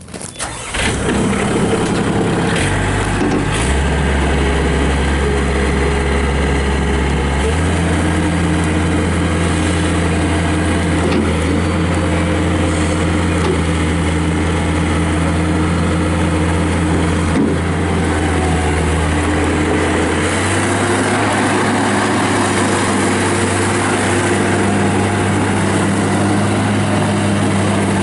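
A skid steer loader's Yanmar diesel engine starts and catches right at the beginning, then runs steadily. Its speed steps up a few times, around 4 s, 7.5 s and 20 s in.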